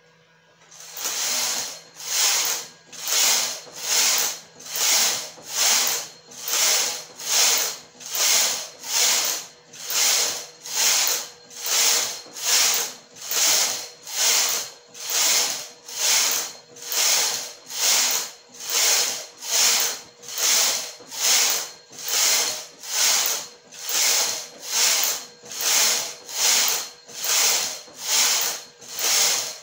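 Hand-operated flatbed knitting machine: the carriage is pushed back and forth across the metal needle bed, knitting one row per pass. It makes an even, rhythmic rasping swish, about three strokes every two seconds, starting about a second in.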